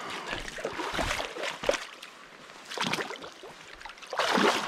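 Shallow river water splashing and sloshing in irregular bursts around a salmon being released by hand. The biggest splash comes a little past four seconds in.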